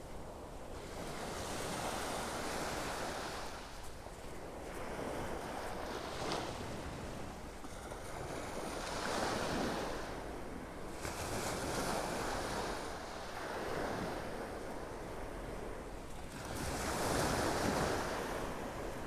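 Little waves breaking and washing up the shore in gentle surges every few seconds, loudest near the end, with some wind rumble on the microphone.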